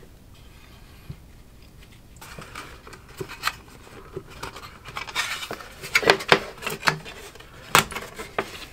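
Thin sheet-metal screen being pried and scraped out of a network switch's metal case by hand: scattered scraping and rattling, then sharper metallic clicks and clacks from about five seconds in.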